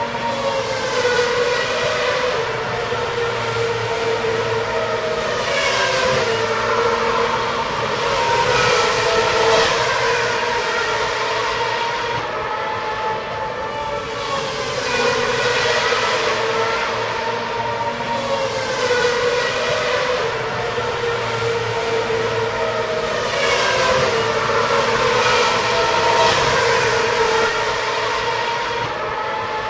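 Racing cars with high-revving engines passing one after another. Each engine's pitch drops as it goes by, in swells every few seconds over a continuous drone.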